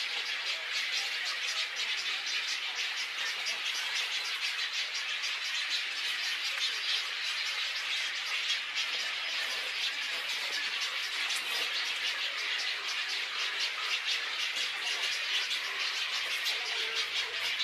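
Many birds calling at once in a nesting colony, a steady, dense chatter of rapid high chirps with no pauses.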